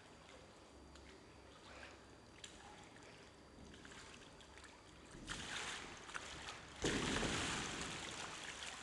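Transparent inflatable water-walking ball on a swimming pool, its plastic skin scuffing and crumpling with water sloshing as the person inside scrambles and falls: a short rustling burst about five seconds in, then a sudden, louder thud and rustle near the end that slowly fades.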